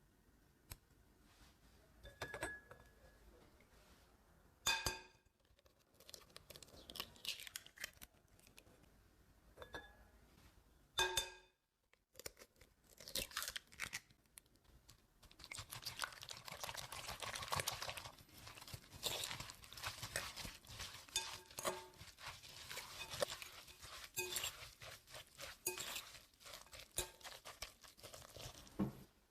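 Food preparation in a bowl: two ringing clinks of a utensil against a bowl, then a long stretch of crunchy scraping and rustling from about halfway through.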